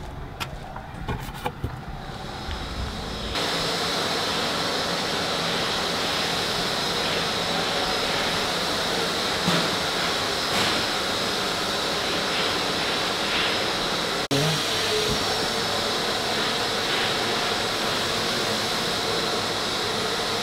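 A few clicks and knocks in the first couple of seconds, then a steady hiss of running workshop machinery with a faint high whine in it, which starts suddenly about three and a half seconds in and briefly drops out about two thirds through.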